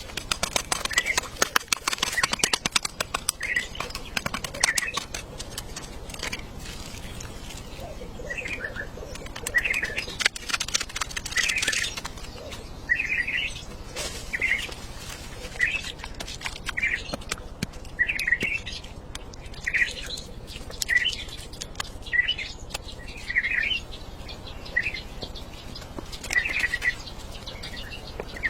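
Raindrops tapping on a tent or tarp, thick and fast in the first twelve seconds and sparser after, with a bird chirping over and over, about once a second.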